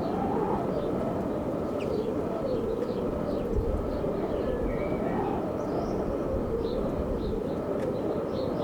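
Small birds chirping faintly and repeatedly over a louder, steady low whirring noise whose pitch slowly rises and falls.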